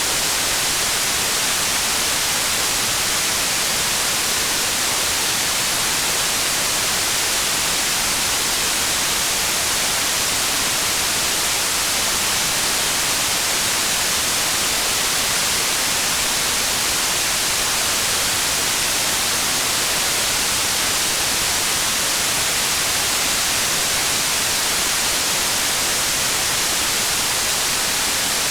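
Steady rain, an even hiss at a constant level, with no single drops or splashes standing out.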